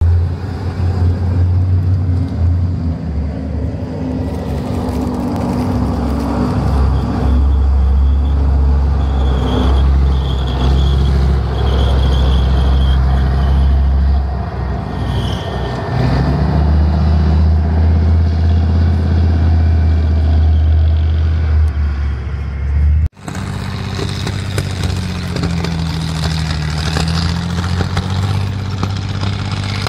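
Armoured military vehicles' engines running loud and steady as they drive on a dirt track, with a deep drone. The sound breaks off abruptly about 23 seconds in and another tracked tank's engine takes over.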